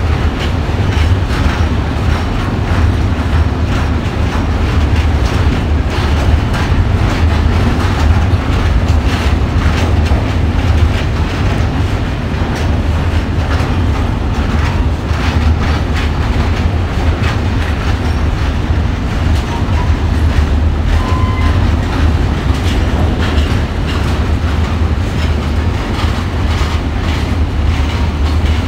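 Long freight train of tank wagons rolling past at steady speed. Its wheels clatter over the rail joints, a steady low rumble with many sharp clicks.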